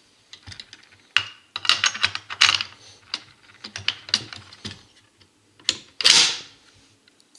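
SKS rifle's bolt and bolt carrier being fitted into the receiver: a run of metal clicks and short scrapes, with a louder sliding metal-on-metal scrape about six seconds in.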